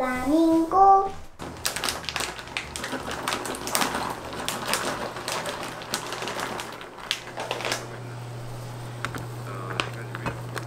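Walnut pieces tipped into a frying pan, a rapid clatter of many small clicks and crackles that thins out after about seven seconds. A low steady hum comes in near the end.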